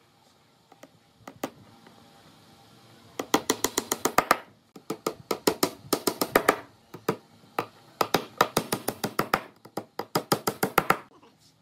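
Claw hammer driving nails into the pine top of a small wooden box: several runs of rapid, light hammer taps, each run a second or two long with short pauses between. The first few seconds are quiet apart from a few isolated clicks.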